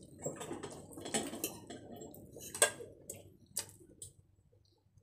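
Slurping instant noodles, with a fork clinking against the bowl a few times; the sharpest clink comes about two and a half seconds in.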